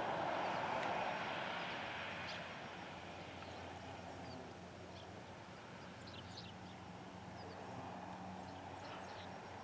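Agricultural spray plane's engine fading as the aircraft flies away, dying to a faint distant drone within about three seconds. A faint low hum remains, with a few short, faint high chirps.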